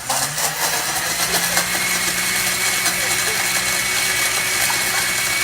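Kitchen blender switched on abruptly, its motor running steadily at full speed with a high whine as it blends a food mixture.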